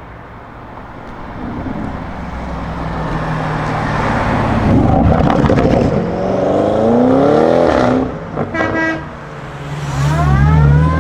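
Audi RS7 Sportback C8's twin-turbo 4.0 V8, breathing through an Akrapovic cat-back exhaust, accelerating hard. The engine note builds from quiet to loud and rises in pitch, drops away just after two-thirds of the way in, then climbs again near the end.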